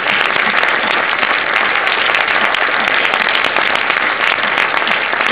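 Large audience applauding steadily in a cinema auditorium: dense, continuous clapping, with a few voices faintly beneath it.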